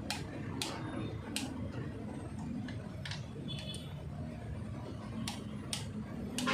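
Scattered sharp metal clicks, about eight over several seconds, from a torque wrench being worked on cylinder head bolts, over a steady low background hum.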